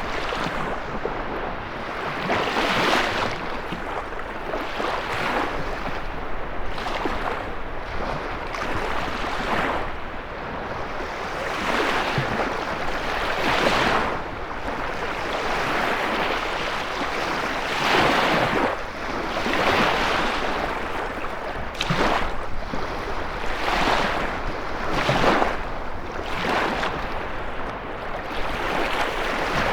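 Lake Michigan waves breaking and washing in, one surge after another every couple of seconds, under steady wind.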